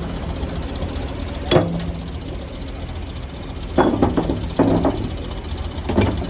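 An engine runs steadily with a low hum. Sharp knocks or clanks come about a second and a half in, then several more from about four seconds on.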